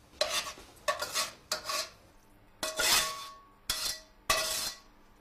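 Metal spatula scraping and knocking against a wok in about six short strokes, each leaving a brief metallic ring, as stir-fried egg and tomato is scraped out of the pan.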